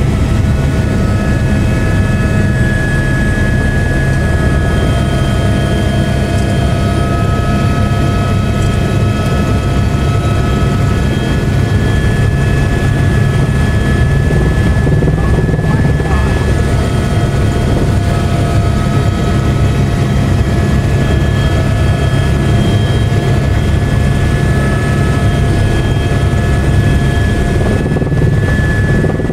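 Helicopter in flight heard from inside the cabin: steady, loud rotor and engine noise with a high, steady turbine whine over it.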